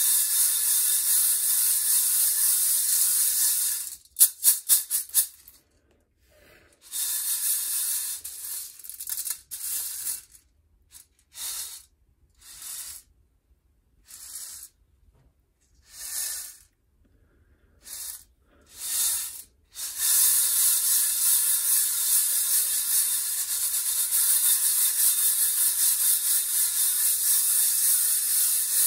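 Freshly roasted coffee beans rattling and swishing in a stainless steel mesh colander as it is shaken to cool the beans and knock off the chaff. Steady shaking at first, then about four seconds in a quick run of sharp rattles followed by short separate shakes with pauses, and steady shaking again from about twenty seconds in.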